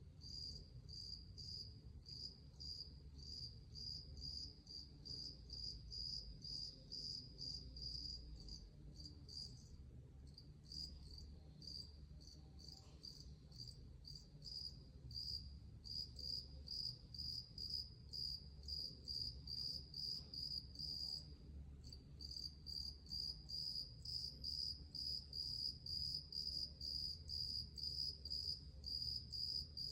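An insect chirping in a steady rhythm, about three short high-pitched chirps a second, with two brief pauses and growing louder in the last third.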